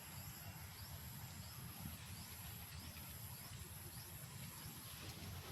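Faint outdoor ambience: a steady high insect drone with short rising chirps repeating less than a second apart, over a low rumble of wind on the microphone.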